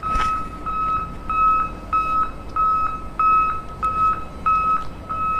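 Reversing alarm of a miniature construction vehicle beeping steadily: one high tone repeated about three times every two seconds.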